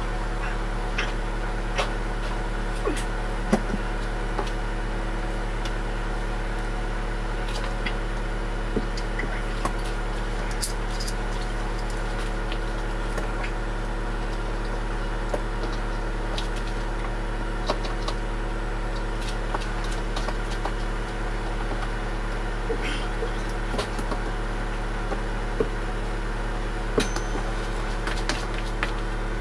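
A steady low hum, with scattered small clicks and knocks from hand tools and fittings on the plumbing under a kitchen sink.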